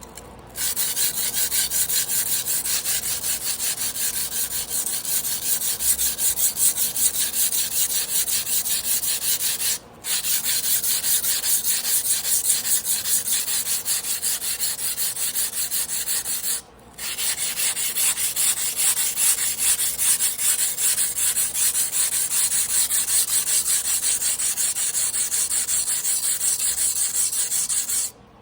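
A Damascus carbon-steel sashimi knife being ground by hand on a wet whetstone: rapid, even back-and-forth scraping strokes in three long runs, with two short breaks.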